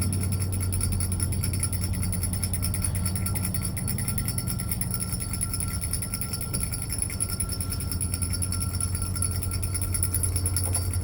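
Metal handbells shaken rapidly and without a break, a fast, even ringing over a steady low hum.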